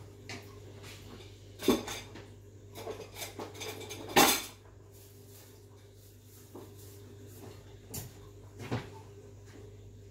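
Chopsticks and cookware knocking and clinking a handful of times, loudest about four seconds in, over a low steady hum.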